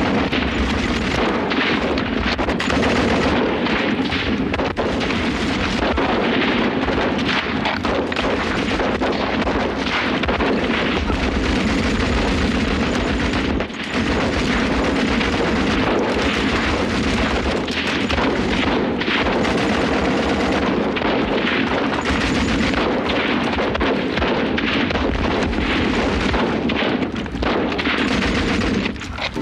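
Battle sound: dense, continuous rifle fire and machine-gun bursts with booms of artillery, breaking off briefly about halfway through.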